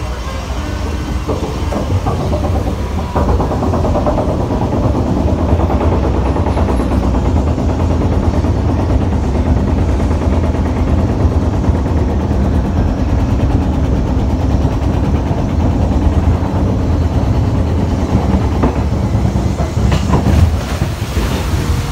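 A boat ride's chain lift hauling a boat up its ramp, with a steady clattering rumble that grows louder about three seconds in.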